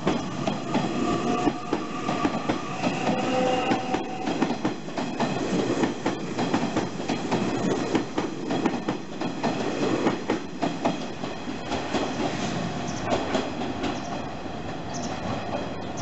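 Nishitetsu electric commuter train running past and pulling away, its wheels clattering over the rail joints, with a steady whine in the first few seconds. The sound eases off slightly toward the end.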